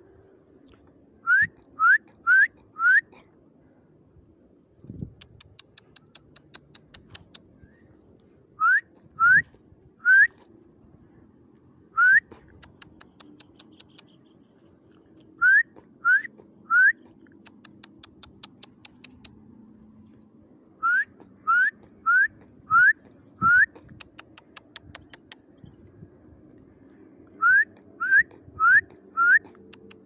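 Loud, short rising whistles in quick groups of three to five, repeated every few seconds. Between the groups come runs of rapid sharp clicks, about ten a second.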